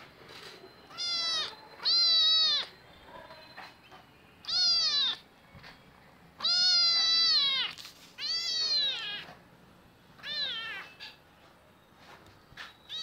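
Young ginger kitten meowing six times, about a second or two apart, each call high-pitched and rising then falling in pitch; the third-to-last call is the longest.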